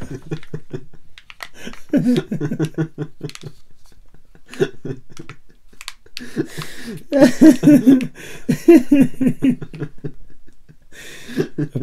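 A man laughing in bursts, loudest in the second half, between small crinkles and clicks from a Kinder Joy egg being handled and unwrapped.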